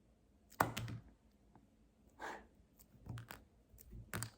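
Faint handling sounds of slime putty being played with in the hands: a few soft clicks and squishes, spread out with short gaps between them.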